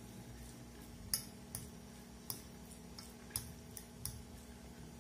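A metal fork clinking and scraping against a plate of rice and meat: a string of light, sharp clinks at uneven intervals.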